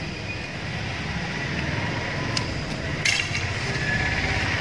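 An archery shot from a wooden recurve bow: one sharp snap about three seconds in, over a steady low rumble.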